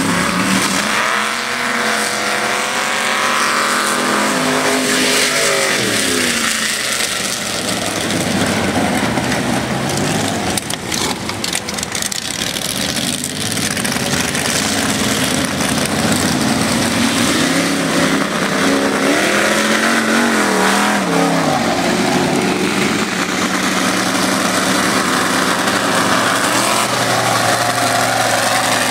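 Engines of lifted four-wheel-drive mud trucks running and revving, their pitch climbing and dropping as they accelerate and back off, most clearly in the first few seconds and again about twenty seconds in.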